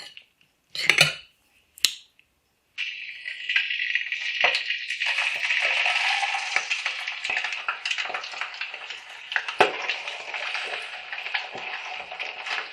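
A few light clinks of dishes, then, about three seconds in, fish frying in hot oil starts up suddenly: a steady sizzle with scattered pops and crackles.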